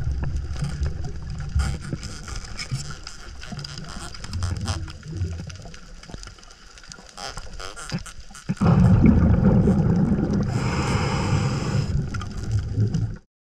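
Underwater sound on a scuba night dive heard through a camera housing: low bubbling surges from the diver's exhalations, with many scattered short clicks. About two-thirds of the way through, a louder, steadier bubbling rush starts suddenly, and the sound cuts off just before the end.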